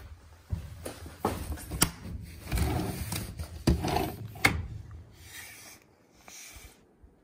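Sliding window being handled and slid open: rubbing and scraping with three sharp knocks, dying away near the end.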